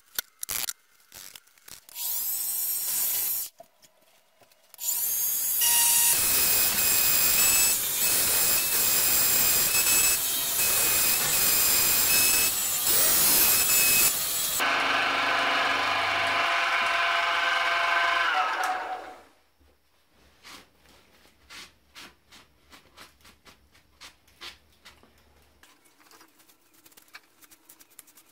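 A motorised tool runs briefly about two seconds in, then runs for about ten seconds with a loud rushing hiss over a steady whine. The hiss cuts off and the whine carries on for a few seconds before fading out, followed by light clicks of handling.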